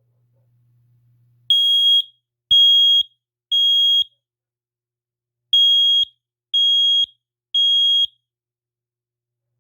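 Kidde 10SDR-CA smoke alarm sounding under test: two rounds of three loud, high-pitched beeps, each about half a second long, with a short pause between rounds. This is the temporal-three fire alarm pattern.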